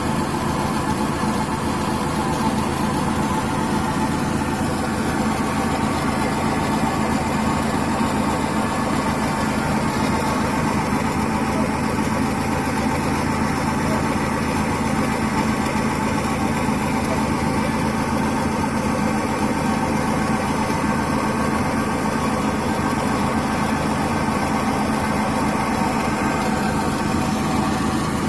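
Car wheel hub bearing humming steadily, mixed with engine and road noise: a humming hub bearing is typical of a worn bearing.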